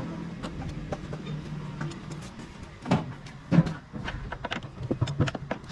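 Clicks, knocks and two louder thumps about three seconds in, from hand work with tools on a car's interior floor and trim, over a steady low hum.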